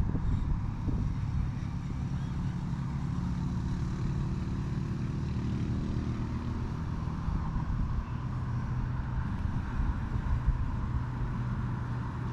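A steady low engine drone in the background, slowly shifting in pitch.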